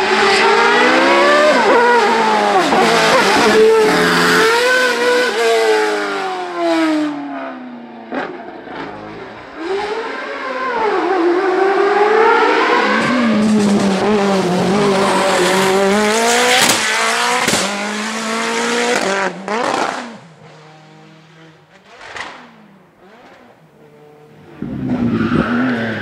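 Hill-climb racing cars' engines revving hard through the corners, pitch rising and falling with each gear change and lift. Two long loud passes are followed by a quieter gap, and another engine starts up loud near the end.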